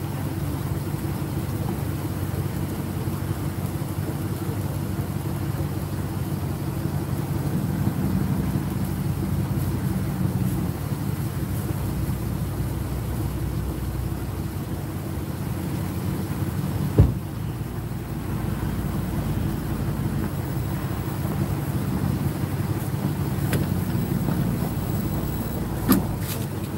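Motor vehicle engine idling steadily with a low hum. A sharp knock comes once about two-thirds of the way through and again near the end.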